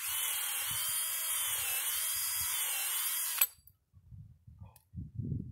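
Cordless drill boring a tap hole into a maple trunk for sap collection. It runs steadily with a slightly wavering whine for about three and a half seconds, then stops abruptly.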